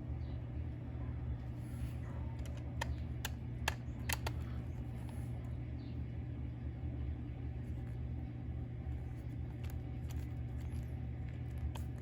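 A few light clicks and taps of small RC car parts being handled, clustered a few seconds in, over a steady low hum.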